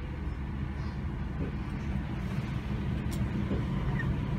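Steady low rumble and hum of a train carriage's interior, with a single light click about three seconds in.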